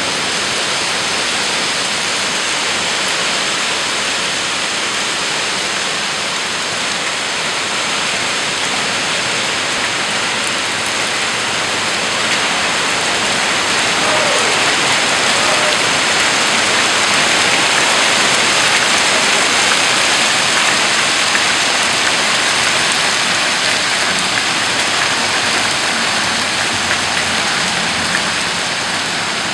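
Heavy rain and hail falling hard, a dense steady hiss of drops and hailstones hitting the ground and trees; it grows somewhat louder in the middle.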